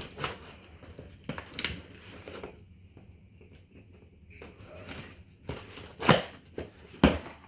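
A cardboard box and its packaging being opened and handled: scattered rustling and crinkling, with two sharper knocks near the end.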